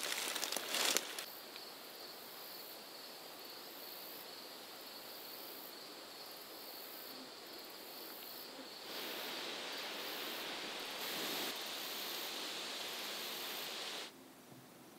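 Insects chirping in a high drone that keeps cutting in and out over a steady outdoor hiss. In the first second there are knocks and rustling as a climbing stick is strapped to a tree trunk. The background hiss grows louder about nine seconds in.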